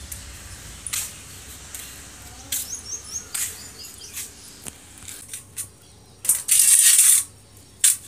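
Scattered light clicks and handling knocks, with a few short high bird chirps about three seconds in. A loud hissing rustle lasts about a second, starting a little after six seconds.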